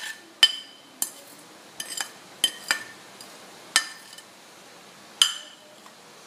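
Spoon clinking and scraping against a china plate and bowl while scraping ingredients into the bowl: about nine sharp, ringing clinks at uneven intervals.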